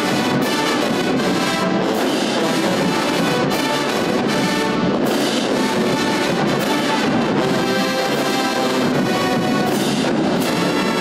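Marching band playing loudly and steadily: brass led by sousaphones and trumpets, with flutes, clarinets and saxophones over drums.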